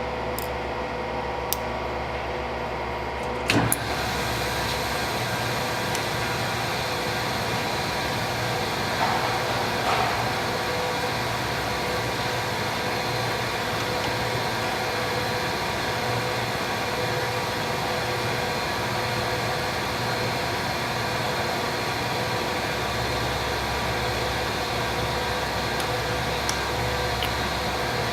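Hardinge HLV-BK toolroom lathe running with a steady mechanical hum and whine. There is a clunk about three and a half seconds in, after which it runs a little louder.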